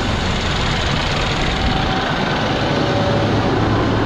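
Freshly rebuilt Cummins ISX inline-six diesel engine idling steadily just after its first start.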